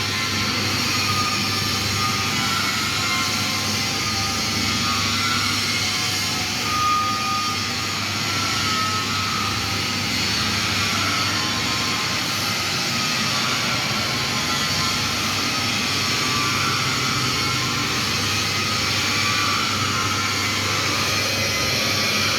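Steady hiss of a TIG welding arc over the low hum of the welding machine, running evenly without a break.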